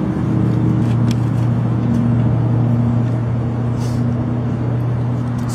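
A steady low mechanical hum, like a motor running, with a few faint clicks.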